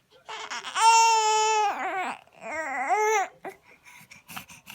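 A baby crying: a long, high, wavering wail, then a second shorter one, followed by a few faint crackles near the end.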